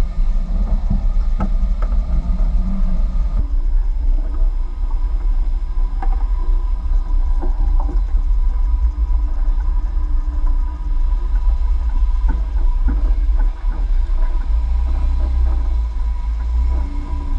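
Jeep driving slowly along a dirt off-road trail, picked up by a camera mounted low on the outside of the vehicle: a steady, loud low rumble of engine, tyres and wind on the microphone, with scattered small knocks and rattles from the suspension and trail.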